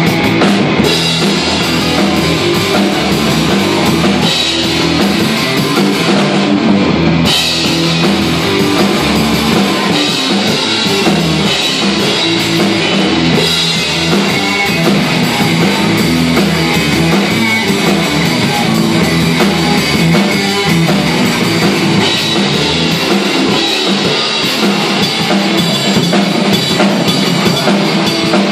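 Instrumental rock band playing live and loud: Fender Stratocaster electric guitar, Fender Precision bass and a Pearl drum kit, with no vocals.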